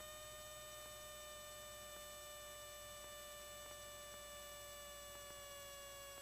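Faint steady electrical whine in the Cessna 172's cockpit intercom audio, a single pitched tone with overtones that sinks slowly in pitch near the end.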